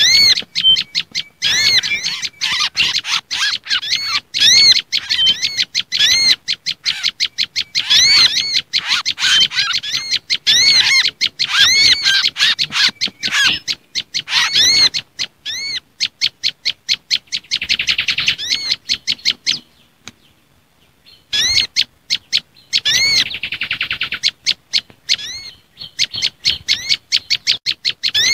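Bird-lure recording of an olive-backed tailorbird (prenjak lumut) in agitated alarm chatter, mixed with mangrove whistler and other small songbird calls. Fast, repeated high chirps and arched call notes, with buzzy trills about 18 and 23 seconds in and a short pause in between.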